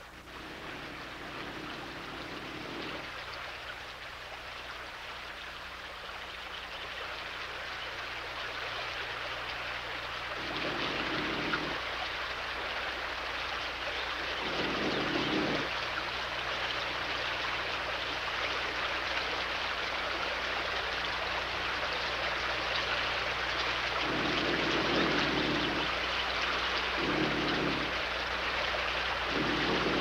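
Stream water running and splashing over rocks, a steady rush with a few brief, deeper surges every several seconds.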